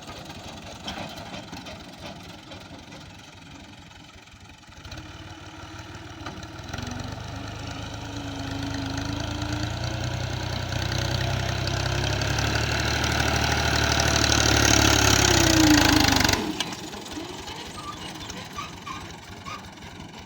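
Heavy machine's engine running, then revving louder from about five seconds in, with a rising whine near the peak, before cutting off suddenly a few seconds before the end; a quieter engine runs before and after.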